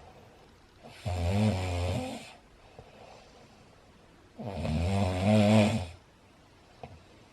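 A man snoring super loud: two long snores, each about a second and a half, roughly three and a half seconds apart, with quiet stretches between.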